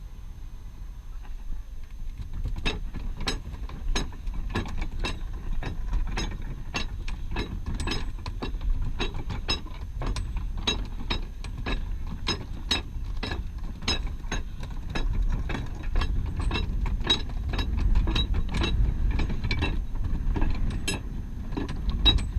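Ratchet pawl of a Thames sailing barge's hand-worked anchor windlass clicking steadily, about two clicks a second, as the anchor chain is hove in. The clicks start about two and a half seconds in, over a low rumble.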